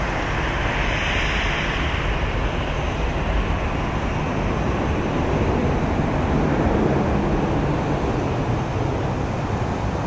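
Boeing 737-800's twin CFM56-7B turbofans at takeoff thrust as the jet climbs away, a steady broad roar that turns deeper after about five seconds.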